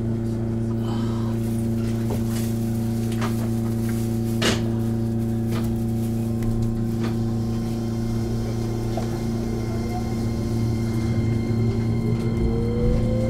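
Electric train heard from the cab: a steady electrical hum with a few sharp clicks, then from about ten seconds in the traction inverter's whine starts and climbs in pitch as the train begins to accelerate.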